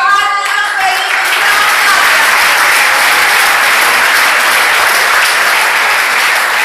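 Audience applauding steadily in a hall, starting about a second in as a voice ends.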